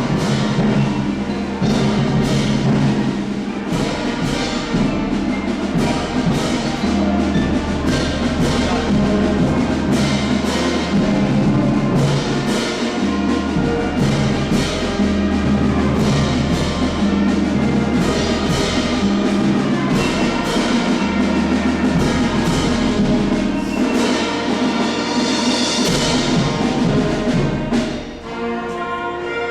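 Instrumental orchestral or band music with percussion keeping a steady beat, dipping briefly near the end.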